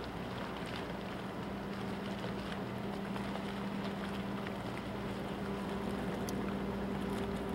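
Car ferry Teshima's engines drone steadily as it approaches, a low hum over a steady hiss, growing slightly louder.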